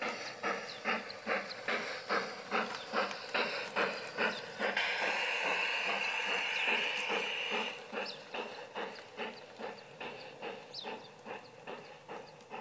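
G-scale model steam locomotive chuffing in a steady beat of roughly three chuffs a second. About five seconds in, a steady hiss lasts about three seconds; afterwards the chuffs carry on, growing fainter as the train moves away.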